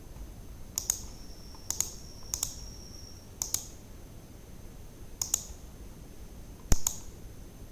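Computer mouse buttons clicking, six quick double clicks at irregular intervals, over a faint steady high-pitched whine.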